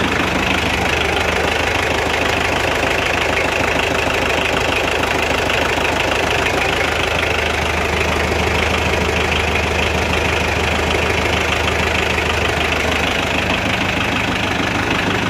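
Kubota L3001 tractor's diesel engine running steadily at idle with an even clatter, holding one speed throughout.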